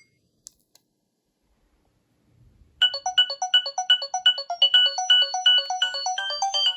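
Nokia 3300b ringtone starting about three seconds in: a quick, evenly repeating melody of short electronic notes, about three a second. Before it there is near silence with a couple of faint clicks.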